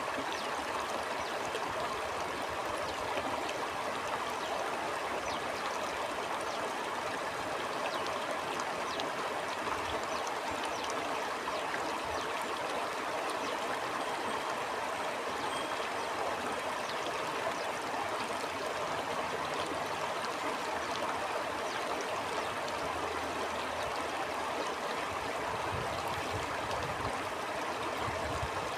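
Stream flowing steadily: a constant rush of water with many small trickling splashes.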